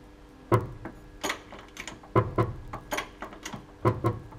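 A series of irregular knocks from a worn Kayaba shock absorber on a Mercedes Sprinter 313 as the van is jacked up and the wheel hangs and jerks. The shock itself is failing after only about 18,000 km.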